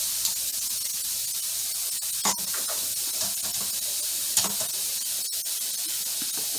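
Thin-sliced carne asada sizzling on an indoor tabletop grill as a steady hiss. Two short clicks come about two and four seconds in as metal tongs move the meat.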